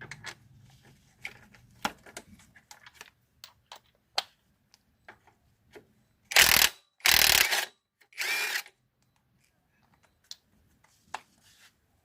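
Scattered clicks and clinks of mechanic's tools, then three short bursts of a power tool about halfway through, while working on a van engine.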